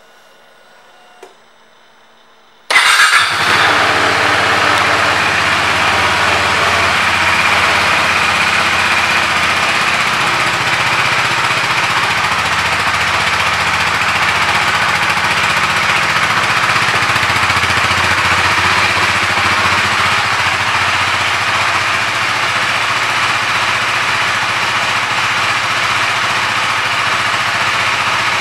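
KTM RC 390's single-cylinder four-stroke engine. After a faint click about a second in, it starts suddenly near the three-second mark with a brief crank and catches, then idles steadily.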